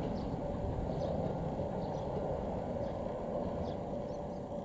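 Steady low rumble of a Kotoden 1080-series electric train approaching the station, easing slightly near the end, with a faint steady hum. Short high chirps of birds come about once a second.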